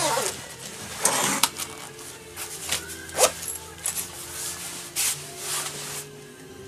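Waterproof nylon shell of a ski jacket rustling in several short bursts as it is handled and smoothed flat, with its zipper being worked by hand. A faint steady hum lies underneath.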